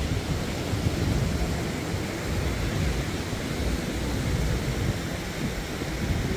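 Wind buffeting the microphone over the steady rush of surf from a rough sea.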